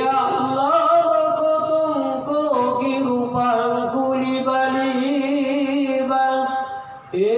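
A man chanting a long melodic phrase into a handheld microphone, holding drawn-out notes that waver and glide up and down. He breaks off for a breath near the end and starts the next phrase.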